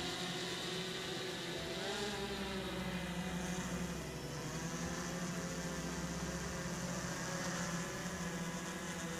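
Quadcopter drone's propellers whirring steadily, a stack of tones with a hiss above them. The pitch shifts briefly about two seconds in as the drone climbs.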